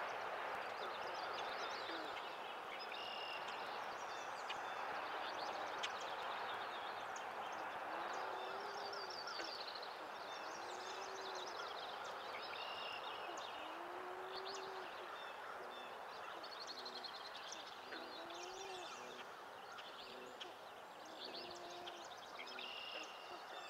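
Several songbirds singing in a dawn chorus: high rapid trills and clear whistled phrases, with short low hooting notes, over a steady background hiss.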